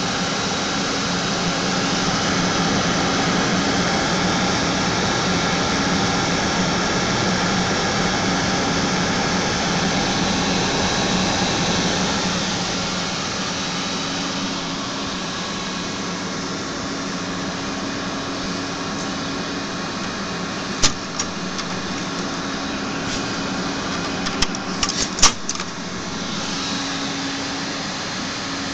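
Desktop computer's cooling fans running with a steady whir and low hum, slightly quieter after about twelve seconds. A few sharp clicks come about two-thirds of the way through.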